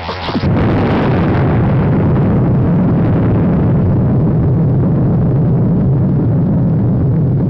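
Explosion sound effect: a loud rumble starts suddenly about half a second in, cutting off electronic music, and holds as a long, steady deep roar while the hiss above it slowly thins.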